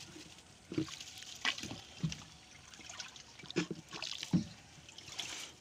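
Water trickling and dripping off a wet China duari trap net as it is handled in a wooden boat, with a handful of short splashes and taps at irregular moments.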